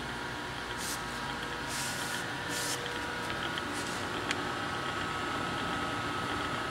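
Mori Seiki MS-850 engine lathe running at a lowered spindle speed with its carriage power feed engaged, a steady gear hum and whine with several held tones. A few short hisses come in the first three seconds, and there is a single click about four seconds in.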